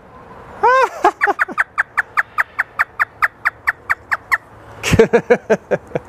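African grey parrot mimicking a hysterical human laugh. One rising-and-falling "ha" is followed by a fast, even run of short falling "ha" notes, about six a second for over three seconds. A few more voice-like laugh sounds come near the end.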